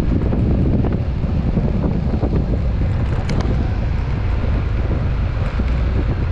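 Wind noise on an action camera's microphone while riding a Yamaha NMAX scooter, over the scooter's engine and a steady road rumble. A single brief click about halfway through.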